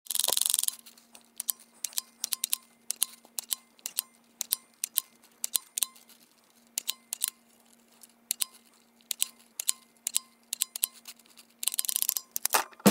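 Handheld embossing label maker stamping letters into plastic tape: a long, uneven run of sharp plastic clicks, often in close pairs as the grip is squeezed and released. There is a short scraping burst at the very start and another near the end.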